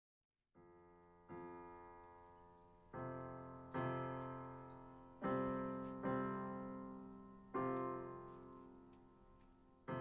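Slow, gentle piano chords: six chords struck one after another, each left to ring and fade, with the last dying away near the end.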